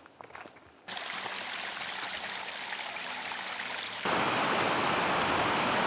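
A few footsteps on a trail, then the steady rush of a stream starts abruptly. About four seconds in it cuts to a louder rush of water.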